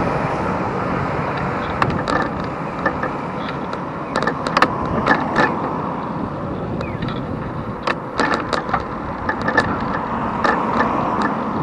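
Steady wind rush and road noise heard from a moving bicycle, with scattered sharp clicks and rattles.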